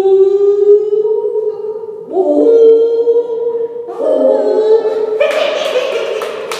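Two people's voices imitating whale calls: long, held, moaning tones that glide slowly up and down, echoing in a stairwell. The sound turns rougher and noisier near the end.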